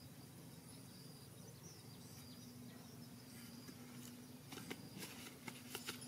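Faint outdoor background with a steady insect drone, then a handful of short soft knocks in the last second and a half.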